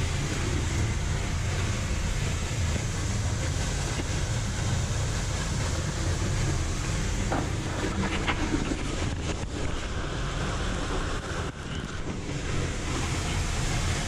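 Steady rushing of a waterfall, mixed with a low rumble of wind on the microphone.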